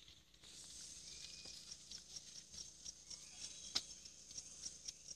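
Faint outdoor ambience: a short high-pitched chirp repeating steadily about three times a second over a steady high hiss, with one sharp click about three and a half seconds in.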